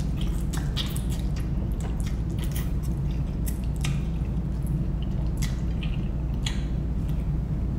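A person slurping up long strands of spicy instant noodles and chewing them, with many short wet slurps and smacks. A steady low hum runs underneath.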